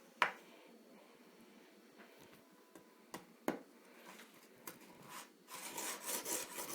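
Cracker being crunched and nibbled: two sharp cracks in the first half, then a run of dry crackly crunching over the last second or so.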